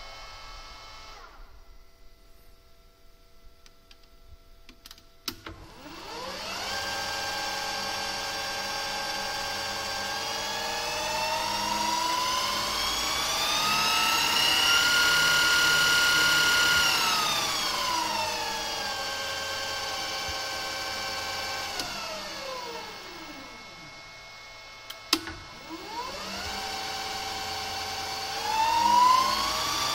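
Lathe motor driven by a variable-frequency drive, with the whine of its electronic drive: the motor spins up with a rising whine and holds at speed. It then winds down with a falling whine almost to a stop, and after a click it spins up again.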